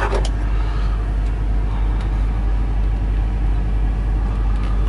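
Semi truck's diesel engine idling steadily, a low, even rumble heard inside the cab.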